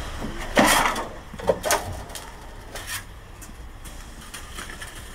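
A brief scraping rustle close to the microphone, then several light clicks and taps of small objects being handled.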